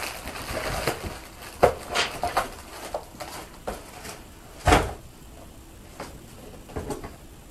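Handling noises from unpacking a cardboard shipping box: rustling and a series of light knocks as craft supplies are moved and set down, with one sharper knock about two-thirds of the way through.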